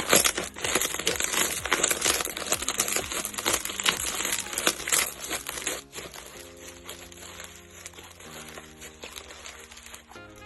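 Slime being squeezed and pressed by hand, giving a dense crackling and popping for about the first six seconds, then quieter squishing. Soft background music with sustained notes runs underneath.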